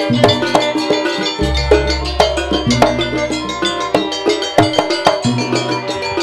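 Live jaranan gamelan ensemble playing: quick, dense drum and wooden-sounding strokes over ringing bronze percussion, with a big hanging gong's deep hum that swells in about a second and a half in.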